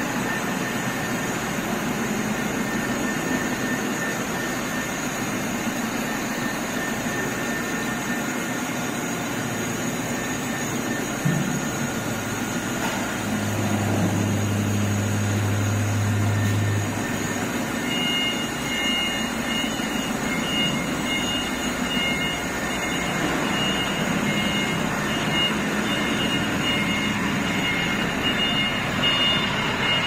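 Vertical CNC wheel-repair lathe machining a spinning alloy wheel: a steady running and cutting noise with faint high whining tones. A low hum swells for a few seconds midway.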